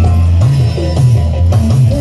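Loud jaranan campursari music, amplified, with a deep bass line bending up and down beneath other sustained instrument tones.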